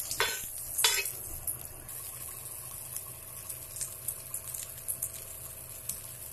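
A paneer tikka skewer frying in butter and oil on a hot dosa tawa: a steady sizzle with small crackles. A spoon scrapes across the pan twice in the first second.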